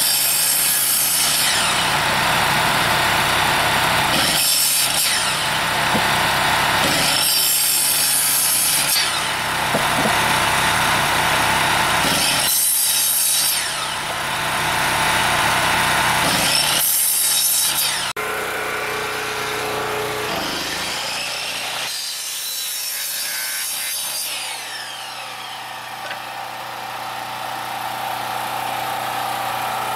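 Electric miter saw cutting small branches into firewood lengths: the blade runs steadily and bites loudly through the wood five times in the first 18 seconds, then runs quieter.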